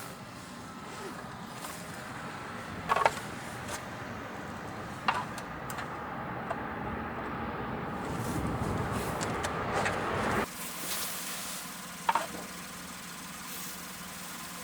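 Steady vehicle running noise, with a few sharp knocks, the loudest about three seconds in; the sound changes abruptly about ten seconds in.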